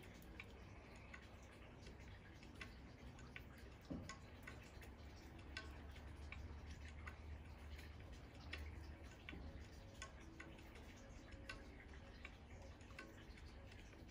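Near silence: a faint low hum with scattered faint ticks, several a second.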